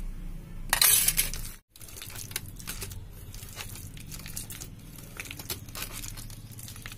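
A hand mixing raw potato sticks into thick, wet gram-flour batter in a steel bowl, making many small sticky crackles. There is a louder rushing noise about a second in, and the sound cuts out briefly just before two seconds in.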